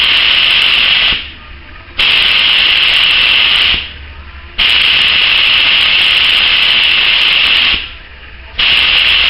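Compressed air hissing out of a paint spray gun, with no paint in it, as its trigger is pulled and released: a blast already under way stops about a second in, then two more of about two and three seconds follow, and another starts near the end.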